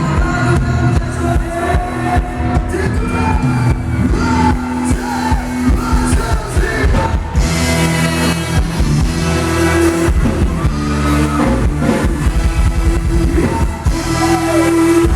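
Live band playing Thai ramwong dance music, with singing over a steady, even beat.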